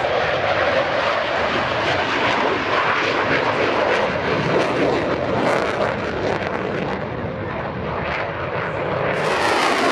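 Jet noise from a Eurofighter Typhoon's two EJ200 turbofan engines in flight: a loud, steady rush that eases slightly about seven seconds in and builds again near the end.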